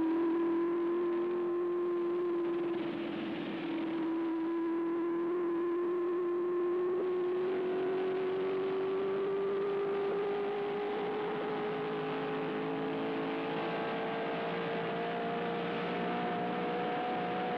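Open-wheel race car engine running at speed, its steady note climbing slowly and smoothly as the car accelerates.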